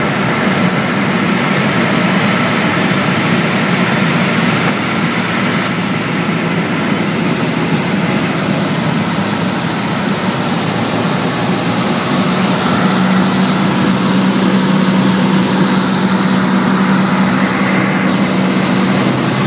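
Piper Tomahawk's four-cylinder Lycoming engine and propeller droning steadily, heard from inside the small cabin. A low hum in the drone grows stronger about two-thirds of the way through.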